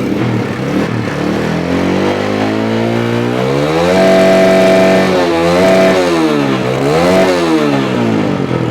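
Honda CS1 single-cylinder four-stroke motorcycle engine just after starting, revved up slowly to a held high pitch, blipped twice, then dropping back toward idle near the end. The engine has the rough knocking the owner calls 'ngorok' ('krotok krotok'), which he links to running low on oil.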